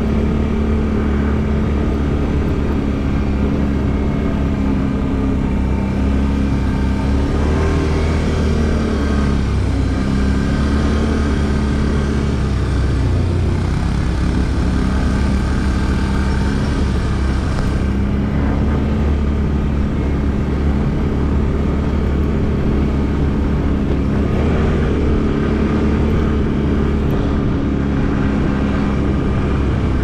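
ATV engine running at low speed on the move, its pitch rising and falling gently with the throttle, over a steady low rumble.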